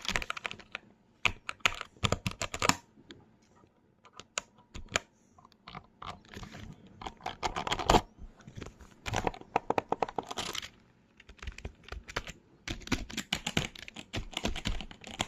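Keys being typed on a computer keyboard in quick bursts of clicks, with short pauses between bursts.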